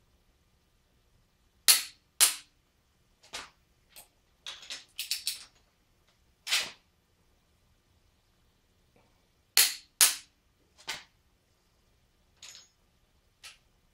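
Click-type torque wrench tightening cylinder-head bolts, giving sharp clicks, some in quick pairs, as each bolt reaches its 65 ft-lb setting, with bursts of smaller ratchet clicks between pulls.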